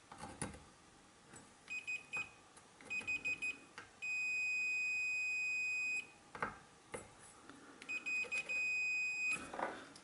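Multimeter continuity beeper sounding on a lawnmower's ignition kill circuit. First come short broken beeps as the probe makes and loses contact, then a steady beep of about two seconds, then more broken beeps and a shorter steady one. The beeps show the ignition coil is correctly earthed out through the stop-lever circuit. A few clicks of handling sound in between.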